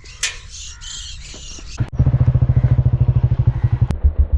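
Birds chirping, then from about two seconds in a small engine running close by with a fast, even beat that becomes the loudest sound.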